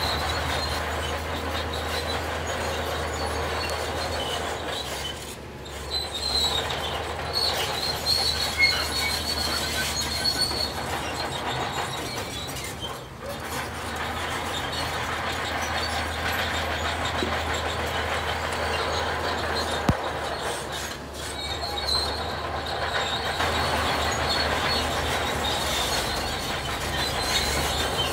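Heavy tracked earthmoving machinery working: a low diesel drone under a steady high-pitched metallic squeal, dipping briefly three times.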